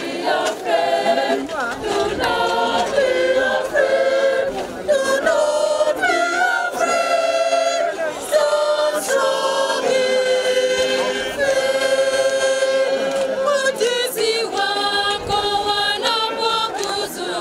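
A choir of many voices singing unaccompanied, in long held notes with vibrato, most drawn out in the middle.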